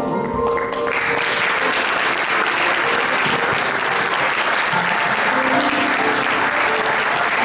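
Audience applauding steadily, starting about a second in as music fades beneath it.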